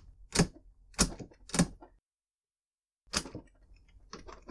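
Bolt of a Thompson Center Compass bolt-action rifle being worked by its new extended handle: three sharp clicks about half a second apart, then after a break another click and a few faint ticks.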